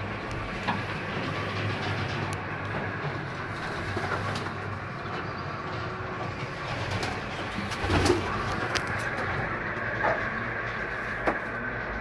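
Racing pigeons cooing together in their loft, a steady low sound of many birds, with a few short sharp sounds on top, the loudest about eight seconds in.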